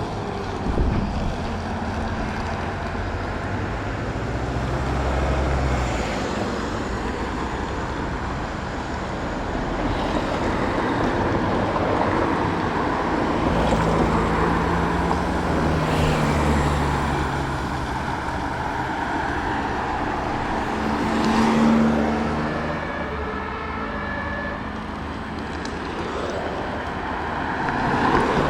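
Vehicles driving past on a street, with steady engine and tyre noise. Heavier engines swell and fade as trucks come and go.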